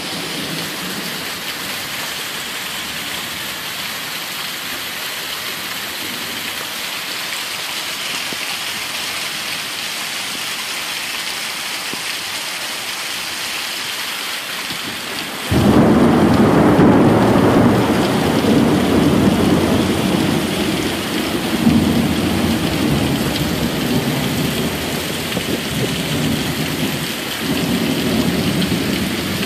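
Heavy rain pouring steadily on a lawn during a thunderstorm. About halfway through, thunder breaks in suddenly, louder than the rain, and rolls on in a wavering rumble to the end.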